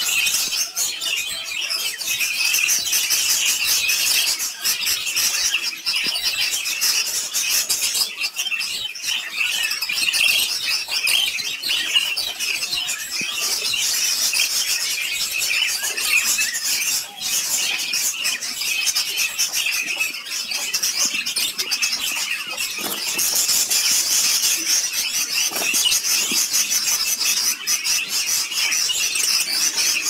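Budgerigars chattering and warbling without a break, a dense high-pitched twittering.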